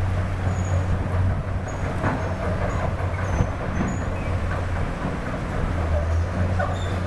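Heavy construction machine's diesel engine running steadily, a deep low rumble, with a few faint knocks and short high squeaks over it.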